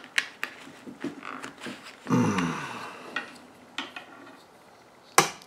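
Small metal parts of a rifle cleaning kit and its canvas pouch being handled: scattered light clicks, a short sound falling in pitch about two seconds in, and one sharp metal click near the end.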